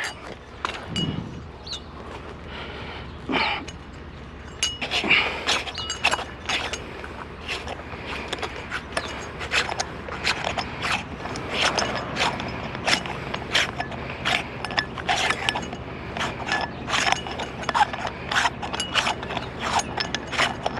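Rapid, irregular metallic clicks and scrapes of light-fixture parts being handled and taken apart, thickening from about five seconds in.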